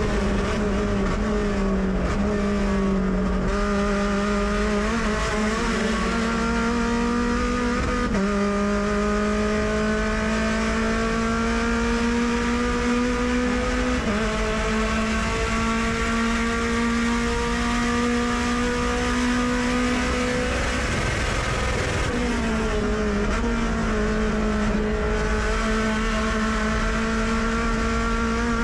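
Mazda MX-5 Cup race car's four-cylinder engine heard from inside the cockpit under hard acceleration, its pitch climbing steadily through long pulls broken by a few quick gear changes. About three-quarters of the way through, the engine note briefly falls away off the throttle, then picks up lower and climbs again.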